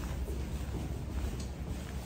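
Footsteps walking through a stone archway passage, a few faint light steps over a steady low rumble.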